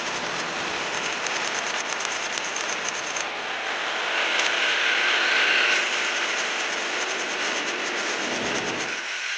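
Steady shop machinery running, a loud rushing noise with a fast fine pulse. A hiss swells in the middle, and the low rumble cuts off near the end.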